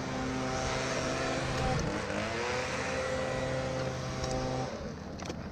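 A motor vehicle engine running steadily, with a second engine-like pitch sliding down and back up about two seconds in; the steady engine sound stops near the end.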